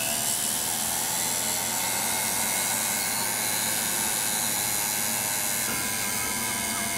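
Flex-shaft rotary tool with a small bit running at a steady high whine while it grinds a bevel into the edge of a foam ski-boot footbed.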